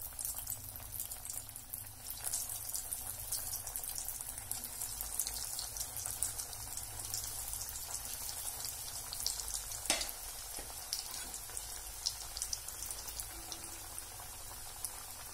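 Breadcrumb-coated banana cutlets deep-frying in hot oil as they are added one by one: a steady sizzle full of fine crackling, with one sharper click about ten seconds in.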